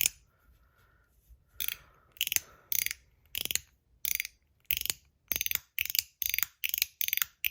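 Stainless steel MOT Groove mechanical slider fidget being slid back and forth. Each slide gives a short burst of quick metallic clicks, about every half second after a brief pause near the start, coming faster toward the end.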